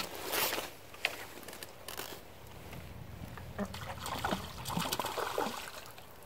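Water splashing and sloshing in irregular bursts as a hooked crucian carp thrashes at the surface while it is played in to the bank.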